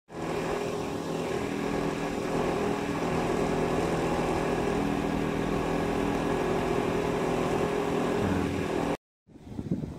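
Steady mechanical hum with several low held tones, the drone of a running motor or machinery. It cuts off sharply about nine seconds in.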